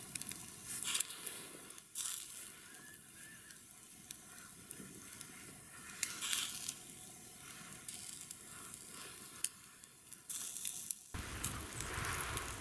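Chicken wing pieces sizzling on a wire grill over hot charcoal, with fat crackling and popping now and then. About eleven seconds in it gives way to a louder, duller noise.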